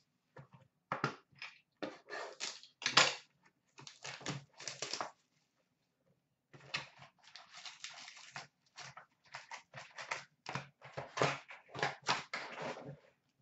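Hands handling and opening a cardboard hockey card box and taking out its foil pack: irregular short rustles, taps and clicks, with a pause of about a second near the middle.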